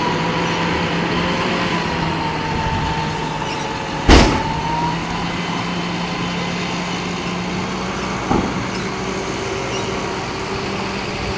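John Deere 7930 tractor's six-cylinder diesel running steadily while its trailer is tipped to unload chopped silage. A sharp bang comes about four seconds in, and a smaller knock about eight seconds in.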